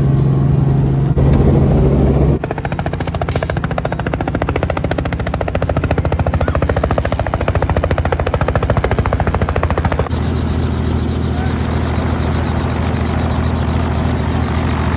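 Robinson R44 helicopter: a steady engine and rotor drone inside the cabin for about the first two seconds, then, heard from outside, the fast even chop of its main rotor blades over the running engine. The tone of the chop changes about ten seconds in.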